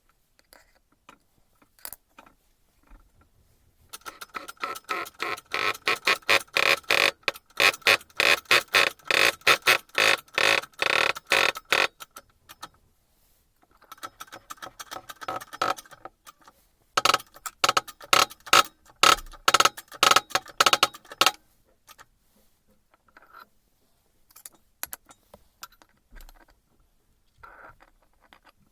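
Rapid, repeated metallic clicking with a ringing edge, in two long runs separated by a pause, with a few scattered ticks around them: hand work on the metal parts of a Hilti TE 76 rotary hammer under repair.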